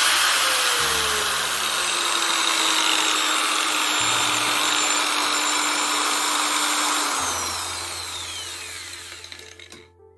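Electric angle grinder running on a variable speed controller: its motor whine drops in pitch over the first few seconds as the speed is turned down, then holds steady. About seven seconds in the motor loses power and winds down to a stop.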